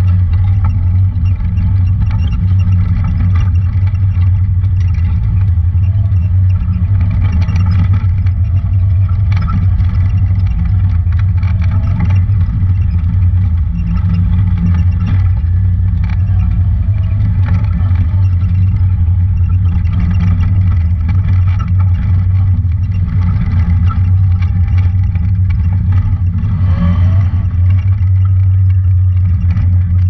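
Engine of a Honda Talon 1000 side-by-side (a parallel-twin) running steadily under way on a rough dirt trail: a constant deep drone, with light rattling and clatter from the machine over the bumps.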